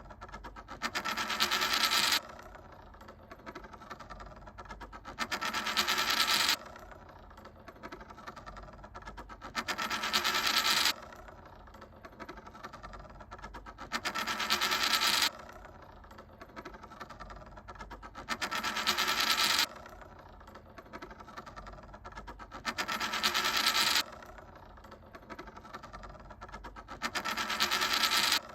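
A 10-yen coin spinning on a hard surface, its metallic rattle growing louder and faster for about a second and a half, then stopping abruptly as it settles. This repeats seven times, about every four and a half seconds, with a quieter fine rattle in between.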